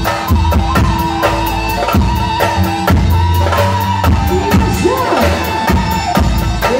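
Live tallava band music played loud through a PA: a drum kit keeps a steady beat under held chords and a melody with sliding, ornamented notes that grows busier in the second half.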